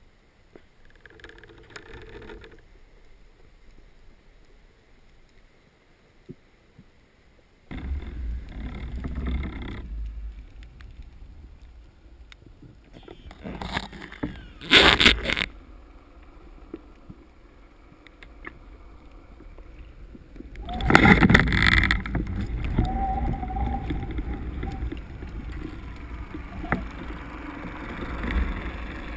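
Muffled underwater noise picked up through a speargun-mounted camera's waterproof housing: several surges of rushing water and knocking as the gun is moved about. A sharp, loud knock comes about fifteen seconds in.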